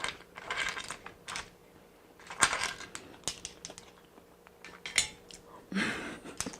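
Eating stir-fried clams in the shell: scattered clicks and clinks of shells and utensils against a dish, several times over, with a few short, noisier eating sounds in between.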